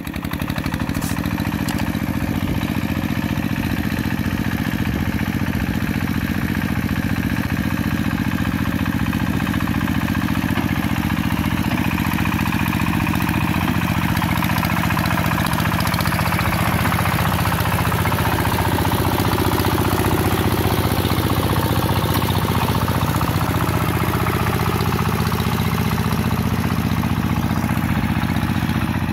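Two-wheel hand tractor's single-cylinder diesel engine running steadily under load as its cage wheels churn through flooded paddy mud.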